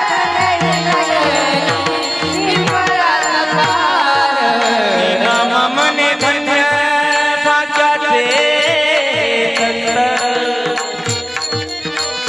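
Devotional Marathi kirtan music: a voice singing an abhang melody over steady held instrumental tones and regular hand-drum strokes.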